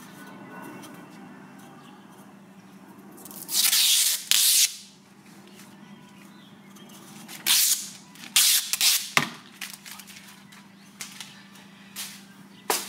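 Protective plastic film being peeled off a wicker bill spoiler strip: ripping, crackling hiss in bursts, one long pull about three and a half seconds in and several shorter pulls around eight to nine seconds, with a couple of sharp clicks. A faint low steady hum sits underneath.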